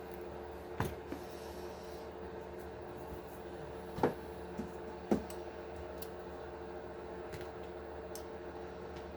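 Light clicks and taps of small screws and plastic RC axle parts being handled. Three sharper clicks stand out, about a second in, about four seconds in and a second after that, over a steady background hum.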